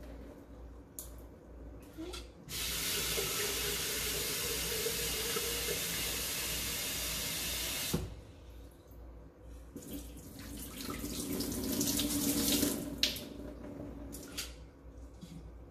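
Kitchen faucet running steadily into a glass mason jar for about five seconds, then shut off suddenly. Water then swirls in the jar and pours out through the sprouting lid, with a few light clinks of the glass jar.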